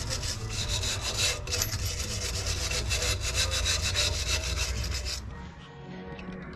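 Rapid back-and-forth scrubbing strokes on the rear drum brake's backing plate around the wheel cylinder, cleaning off brake dust and grime; the scrubbing stops about five seconds in.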